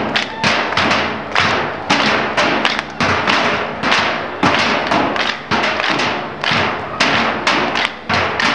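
Percussion ensemble beating metal oil drums with sticks in a steady rhythm of loud, sharp strikes.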